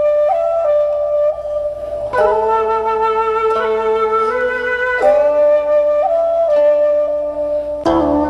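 Slow instrumental background music: a held, flute-like melody over sustained chords, the notes changing every second or so, with new chords entering about two, five and eight seconds in.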